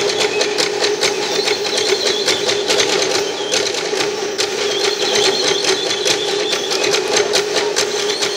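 Live dance music for a Bukidnon cultural dance: wooden percussion clicking in a fast, even beat over a steady held tone.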